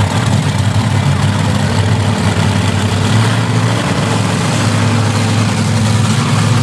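Bigfoot monster truck engines running steadily at low speed, a deep, even engine sound with no hard revving.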